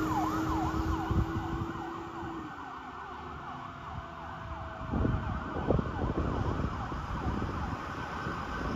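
Fire engine siren yelping in rapid rising sweeps, about three a second, fading out within the first couple of seconds alongside a steady tone. Road and engine noise from passing traffic remain afterwards.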